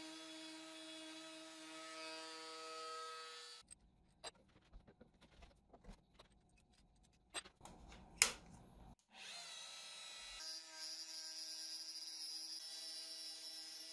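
Makita compact router used as a milling spindle, its motor running with a steady whine that cuts off a few seconds in. Clicks and knocks follow as the router is handled and repositioned in its clamp, with one sharp loud click about eight seconds in. Then the motor spins up with a rising whine and runs steadily again.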